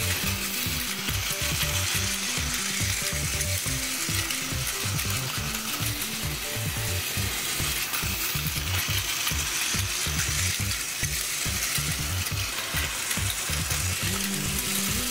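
Plarail JR Kyushu Asoboy! toy train's small electric motor and plastic gears running steadily along the track, a continuous fine clicking whirr, over background music.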